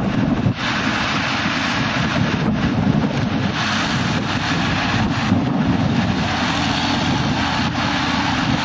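Wind buffeting the microphone: a steady, loud low rumble with a hiss above it.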